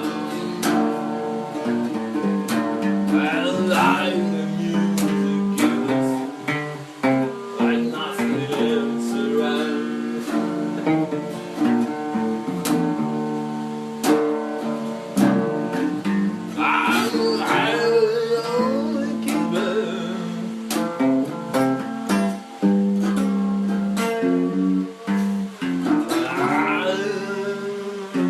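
Acoustic guitar music, picked and strummed notes over held chords, with a wavering sung line coming in briefly three times.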